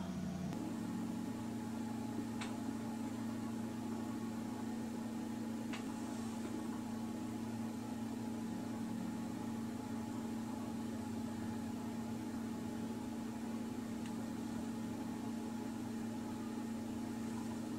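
A steady machine hum with a few constant tones in it, and two faint ticks about two and a half and six seconds in.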